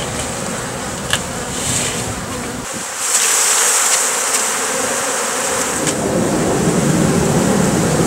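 Honey bees buzzing from a disturbed colony, many in flight around opened comb, growing louder about three seconds in.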